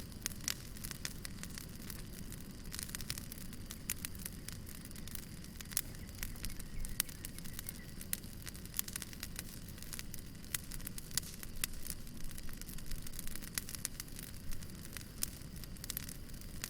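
Wood fire burning, with many sharp irregular crackles and pops over a low steady rumble.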